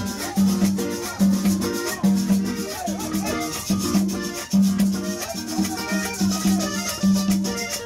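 Live Panamanian música típica: a button accordion plays the melody over conga drums and a steady low beat about twice a second, with a shaker-like rattle keeping time.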